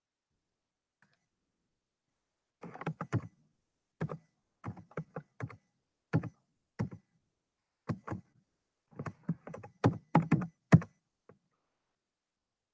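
Computer keyboard being typed on, short irregular bursts of key clicks starting about three seconds in.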